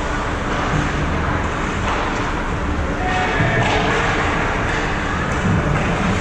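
Hockey game noise in an ice rink: indistinct voices over a steady noisy bed, with a few sharp knocks and thuds from sticks, puck and boards.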